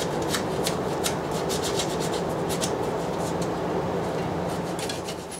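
Hands rubbing and scraping at an ATV's wire terminals, with scattered light clicks and ticks, over a steady low hum.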